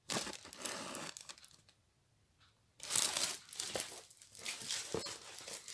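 Plastic crinkling as a folded diamond painting canvas in its clear plastic wrapping is handled, in two spells with a pause of about a second between them.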